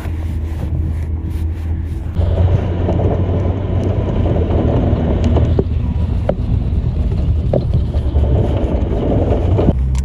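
4WD vehicle driving on a snowy track: a steady low engine drone, joined about two seconds in by loud rumbling tyre and track noise with a few sharp knocks. The rumble stops shortly before the end, leaving the engine drone.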